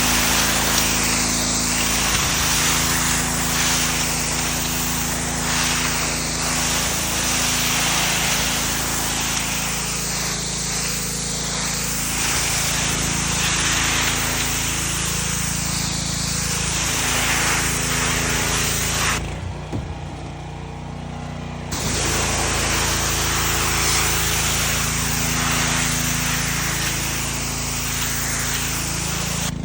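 Gas-powered Mi-T-M pressure washer running steadily, its high-pressure spray hissing hard; the spray stops for about two seconds about two-thirds of the way in, with the engine still running, then starts again.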